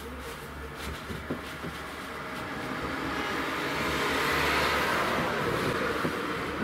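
A passing road vehicle: its noise swells gradually to a peak about four and a half seconds in, then fades, over a steady low hum.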